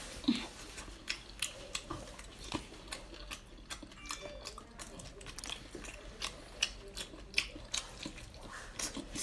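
Close-up chewing and biting of whole cooked octopus: an irregular run of short mouth smacks and clicks, a few a second.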